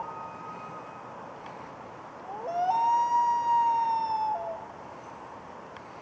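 Common loon wailing. The male calls one long note that slides up, holds steady and drops at the end, calling the female off her nest. A fainter note trails off near the start.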